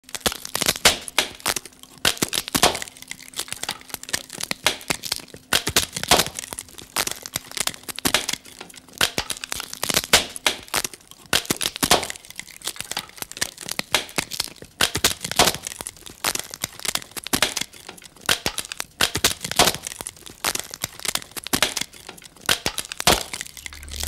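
Dense, irregular crackling and snapping, several sharp cracks a second, with a faint steady low tone underneath for the first half.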